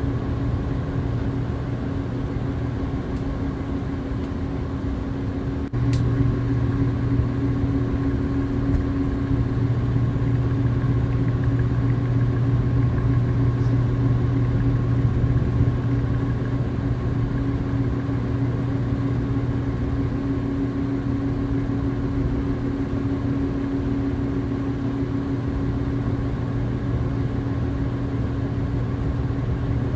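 Steady machine hum holding a few fixed tones, with a sharp click about six seconds in after which the low part of the hum grows louder.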